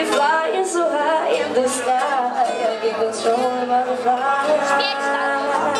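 A man singing to his own acoustic guitar accompaniment, a live solo song.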